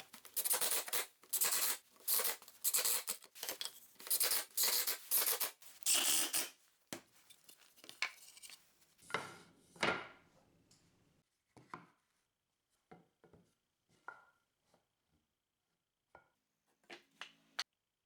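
Rhythmic rough rasping strokes on wood, about two a second for the first six seconds or so, then a few scattered light taps and clicks.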